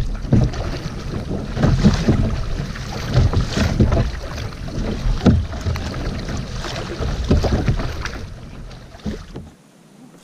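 Tandem kayak being paddled through seawater: irregular splashing paddle strokes every second or two, over a steady rumble of wind on the microphone. The sound cuts off suddenly near the end.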